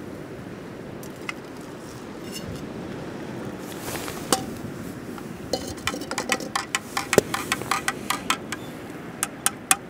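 Hot water poured from a camp-stove pot into a cup, then a metal spoon stirring instant coffee: a fast run of light clinks for about three seconds, and three quick taps near the end. Steady wind and wave noise underneath.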